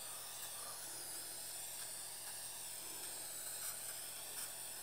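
Aerosol can of hairspray spraying in a steady hiss, coating a ball of polyfiber with adhesive.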